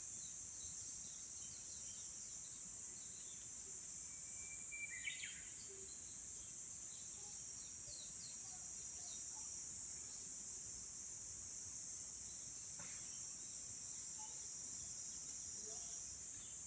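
Steady high-pitched chirring of insects, with faint scattered bird chirps. About four seconds in, a Japanese bush warbler sings once: a held whistled note that breaks into a quick flourish.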